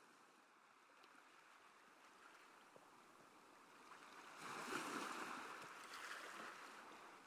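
Faint rushing noise of waves, starting out of silence, swelling about four seconds in and then ebbing. It is a sea-sound intro that comes before the album's music begins.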